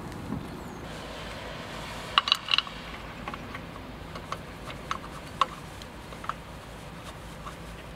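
Steel wheel bolt clinking against a steel wheel rim and hub: three sharp, ringing metallic clinks about two seconds in, then a few lighter ticks spread over the next few seconds as the bolt is threaded in by hand.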